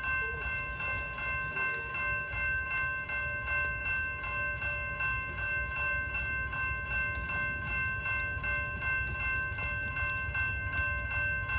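Train rolling by with a steady low rumble. Over it a high ringing pulses rapidly and evenly throughout.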